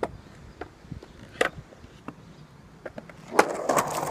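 Skateboard dropping into a concrete bowl: a few light clicks and knocks of the board at the edge, then about three and a half seconds in a loud smack as the board lands on the ramp, followed by the wheels rolling on concrete.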